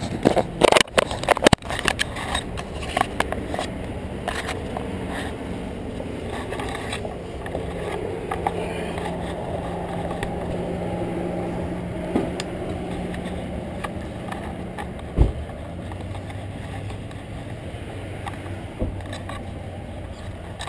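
Knocks and rubbing from the handlebar camera being handled in the first two seconds, then a steady hum of car engines from the parking lot and road. A low engine tone holds for several seconds and then gives way to a lower one, and a single thump comes about fifteen seconds in.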